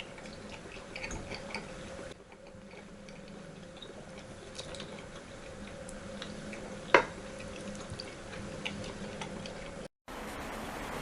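Cat lapping cream: irregular small wet clicks of the tongue over a steady appliance hum, with one sharper louder click about seven seconds in.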